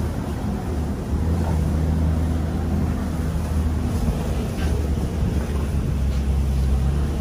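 Open-sided safari truck driving along, its engine running with a steady low drone.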